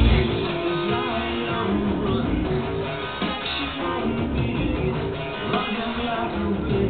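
Music with guitar playing back from a vinyl record on a Pioneer PL-X300 turntable.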